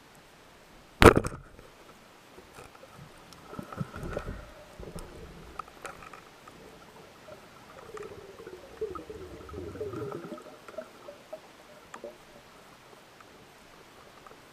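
Sound recorded underwater: a sharp knock about a second in, the loudest sound, then muffled gurgling and rumbling water noise in two stretches, with scattered clicks.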